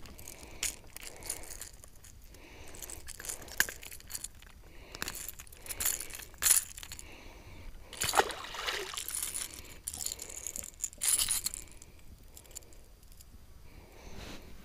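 Handling noise from releasing a caught bass and holding up the crankbait: scattered sharp clicks and clinks from the lure's treble hooks and rattles, with splashes and sloshes of water at the boat's side.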